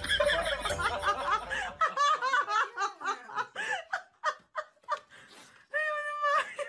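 A person laughing and giggling in short, repeated bursts, with a longer held laugh near the end.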